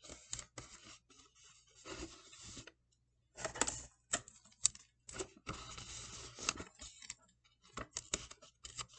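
Hands working tape onto the top edge of a cardboard cereal box: scratchy rustles and scrapes of tape and cardboard in several short bunches, with sharp clicks and taps between them.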